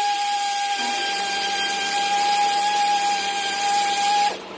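Air tool spinning out bolts while removing the water pump and alternator brackets from a small-block Chevy 350: a loud, steady whine over air hiss that cuts off abruptly near the end. A low air-compressor hum starts beneath it about a second in.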